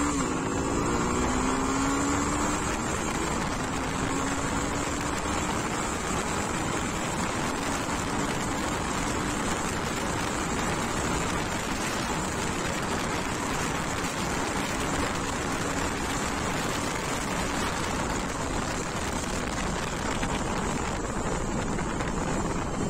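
Suzuki V-Strom 250 motorcycle engine accelerating hard for a top-speed run, its pitch climbing through the gears over the first few seconds. It then holds a steady high-speed drone under heavy wind rush, and fades near the end as the bike slows.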